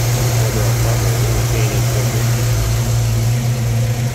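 Chevrolet ZZ4 350 small-block V8 idling steadily.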